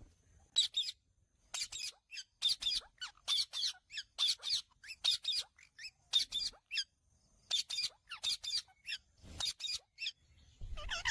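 Indian ringneck parakeet calling: a steady run of short, high-pitched squawks, many coming in quick pairs, with a brief break about seven seconds in.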